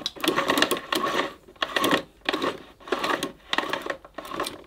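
Cable rewind reel of a 1982 Hoover Compact Deluxe 800 vacuum cleaner, opened up, rattling in about seven short bursts as the mains cable is rewound and pulled. The cable sticks partly wound inside instead of pulling out fully, which the owner puts down to something in the reel's coil spring.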